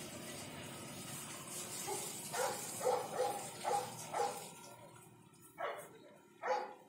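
Water from a hose jet hissing and splashing onto an elephant's hide, then, from about two seconds in, a dog barking in short sharp runs.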